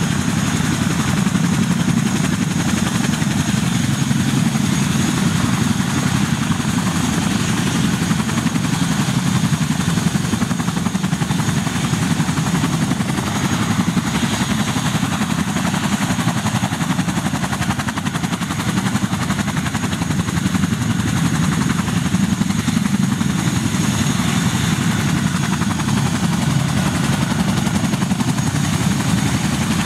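Boeing CH-47 Chinook tandem-rotor helicopter running on the ground with both rotors turning: a steady, fast rotor beat under a thin, high turbine whine.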